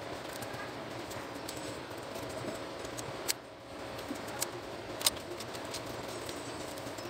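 Small sharp clicks and taps of a flat print-head ribbon cable being handled and fitted into the metal frame of an Epson TM-U220 printer mechanism, the sharpest about three and five seconds in, over a steady background hum.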